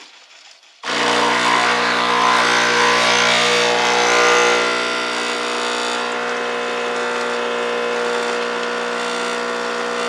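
Home espresso machine's pump running steadily as it pulls a double shot. The hum starts about a second in and gets a little quieter about halfway through.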